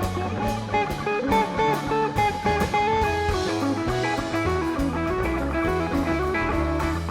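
Background music from a live rock band: electric guitar lines over bass and drums, with a steady beat.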